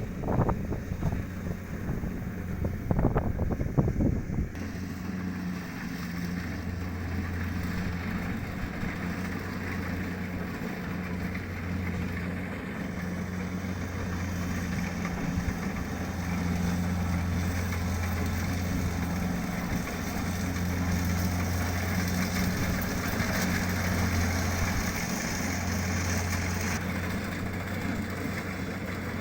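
Kubota DC-70 combine harvester's diesel engine running steadily. Wind buffets the microphone in the first few seconds.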